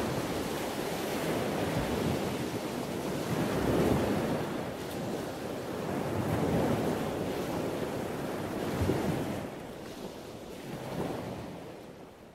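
Waves washing in with wind, a rushing noise that swells and eases every two to three seconds and fades out near the end.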